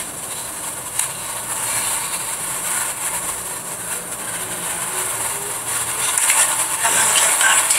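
Steady background hiss with a faint click about a second in.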